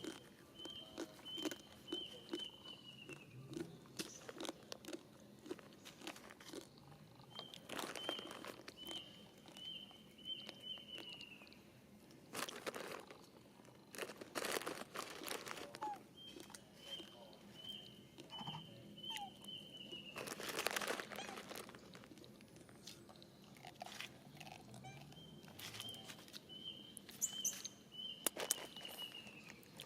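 Intermittent crunching and rustling, with a few louder crackling bursts in the middle and near the end. A bird repeats a short phrase of about five quick notes ending in a falling note, four times, roughly eight seconds apart.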